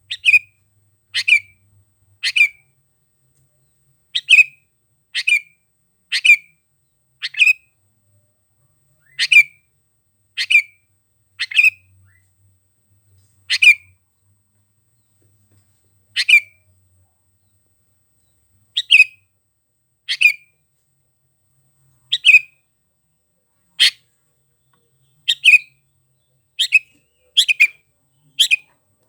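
Sooty-headed bulbul (kutilang) calling over and over: about twenty short, loud, bright notes, mostly about a second apart, with a few longer pauses.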